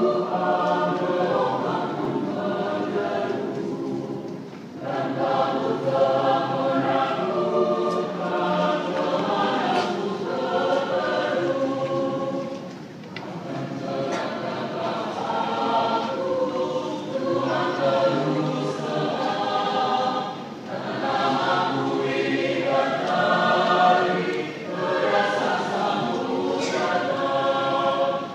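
Church choir singing a hymn in sustained phrases, with brief breaks between phrases about every four to eight seconds.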